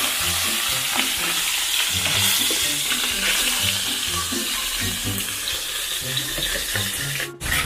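Two whole fish sizzling in hot oil in a wok, a steady frying hiss that cuts off abruptly near the end.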